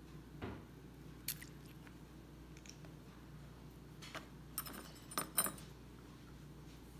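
A few faint clicks and light taps, with a quick cluster of them about five seconds in: a small plastic food-colouring squeeze bottle being handled as drops are squeezed out.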